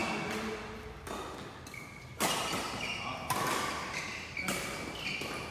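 Badminton rally: a shuttlecock struck hard by rackets about once a second, each sharp hit echoing in the hall.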